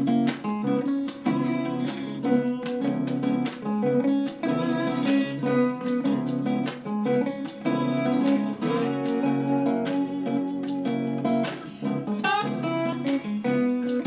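Acoustic guitar music played through small portable Bluetooth speakers, first the JBL Go 2 and then the Sony SRS-X11, with little deep bass.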